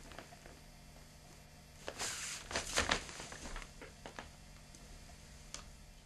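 Footsteps on crinkling plastic sheeting, with scattered light ticks and a louder rustle of plastic about two seconds in, performed as a foley take of walking on plastic and kneeling down.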